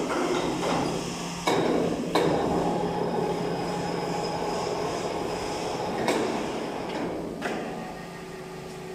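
Factory assembly noise: a steady rushing din with a low hum, broken by several sharp metal knocks as reaper parts are worked on.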